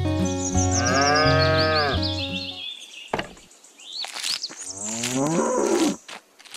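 Cow mooing twice: a long moo that rises and falls in pitch about a second in, and a second moo rising in pitch near the end. Background music plays under the first moo and stops about two and a half seconds in.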